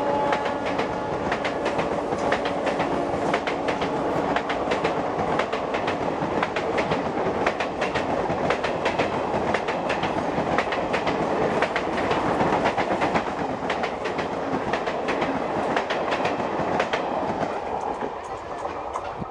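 Coaches of an Indian Railways express passenger train passing close at speed: a continuous loud rumble with rapid wheel clatter over the rail joints, easing slightly near the end.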